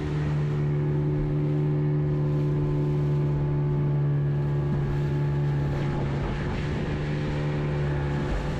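Fishing boat's motor running steadily at a constant pitch while under way.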